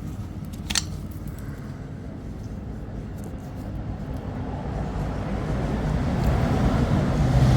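A motor vehicle's engine running nearby with a low rumble that grows louder in the second half, and a brief high scraping sound about a second in.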